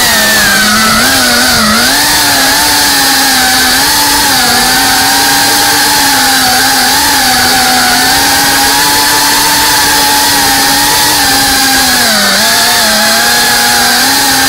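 FPV racing quadcopter's brushless motors and propellers whining steadily, the pitch wavering up and down with the throttle as it flies, over a steady hiss. The pitch dips briefly about twelve seconds in, then climbs back.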